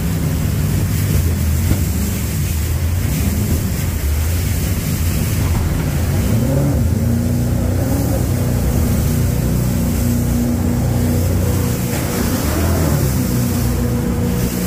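Jet boat's engine running hard up through rapids, its pitch swinging up and down about six seconds in and again near the end as the throttle changes, over the rush of whitewater along the aluminium hull.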